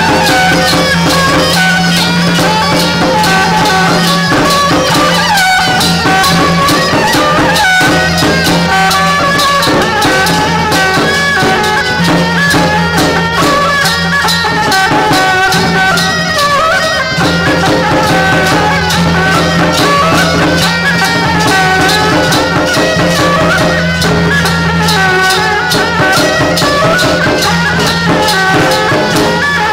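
Loud traditional Taiwanese temple-procession music: a reed wind melody over a steady low drone and dense, fast cymbal and drum beats, accompanying a dancing general-figure performer.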